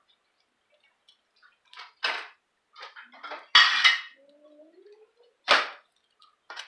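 Spatula knocking and scraping on a nonstick griddle pan as pancakes are lifted off: several sharp clatters, the loudest a little past halfway.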